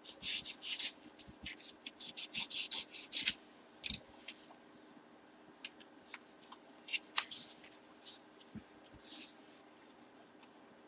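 Paper rustling and crinkling as hands open a manila envelope and slide the card mailer out of it. A quick flurry of rustles over the first few seconds thins to scattered rustles, with one longer rustle near the end.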